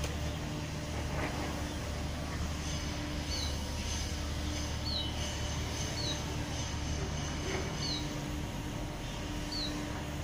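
Steady low hum with a bird's short, high, falling chirps repeated every second or two.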